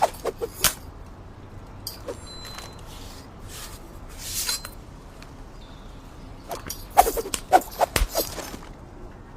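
Knife handling sounds: a few sharp metallic clicks at the start, a short rushing swish about halfway, then a quick cluster of clicks and snaps near the end.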